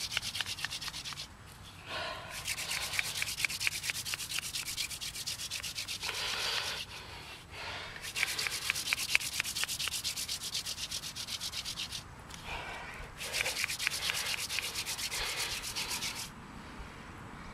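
Hand-drill friction fire: a dog fennel spindle spun between the palms, grinding into a loblolly bay hearth board with a fast, steady rasping. It comes in four bouts with short breaks between them, where the hands go back up the spindle, and stops about sixteen seconds in.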